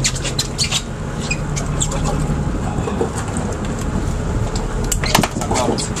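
A boat's engine running steadily with a low hum under wind and water noise. A few sharp knocks come about five seconds in.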